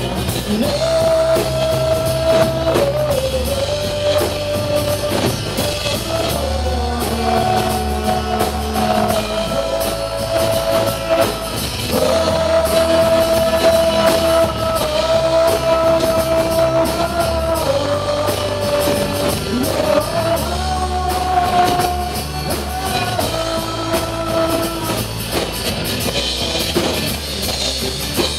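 A live rock band playing: drum kit, electric bass and acoustic guitar, with a voice holding long, drawn-out notes over the beat.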